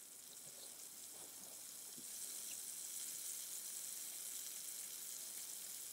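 Battered chicken pieces frying in hot oil in the open pot of a gas pressure fryer as they are dropped in: a faint, steady sizzle that builds over the first couple of seconds.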